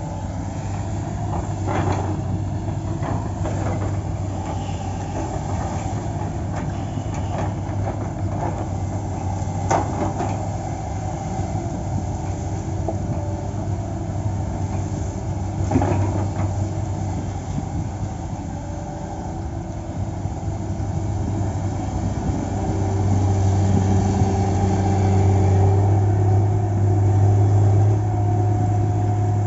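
Heavy diesel engine of a log-loading machine running steadily, rising to a higher, louder load from about two-thirds of the way through. A few sharp knocks, as of logs being handled, come in the first half.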